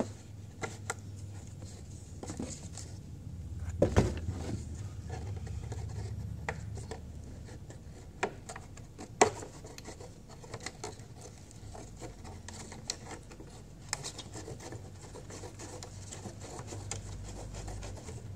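Scissors cutting a thin plastic flower pot: irregular sharp snips and clicks with plastic scraping and rubbing as the pot is turned, over a low steady hum.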